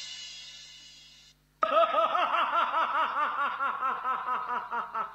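A drum and cymbal crash dies away to silence, then about a second and a half in a long, evenly paced theatrical villain's laugh, 'ha-ha-ha', starts and keeps going: Ravana's stage laugh.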